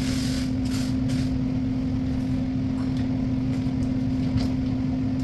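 Steady low machine hum with one strong, unchanging tone, and a few faint light clicks of flat-pack cabinet parts being handled.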